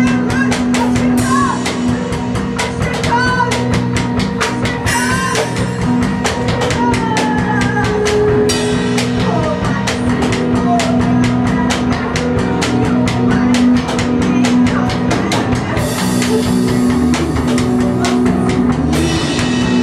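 Loud improvised live rock: a drum kit played in a fast, dense run of hits and cymbal crashes under a steady held drone, with electric guitar and a woman's voice wavering in pitch through a microphone.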